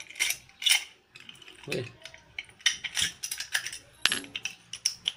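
Small metal padlock being handled: a run of sharp metallic clicks and short rattles, irregular and close together.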